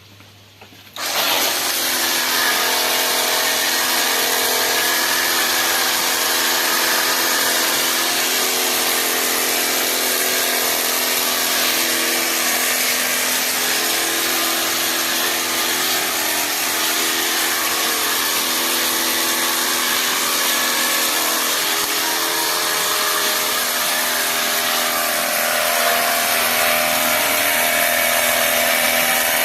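Ecosen portable jet cleaner (pressure washer) switching on about a second in and running steadily, its motor hum mixed with the hiss of the spray as it sprays shampoo from the soap-bottle attachment.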